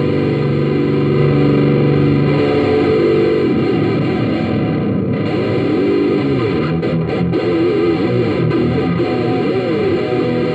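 Electric guitar played with distortion through a Marshall CODE50 modelling amp, picked up by a phone microphone: held chords for the first few seconds, then a wavering single-note line.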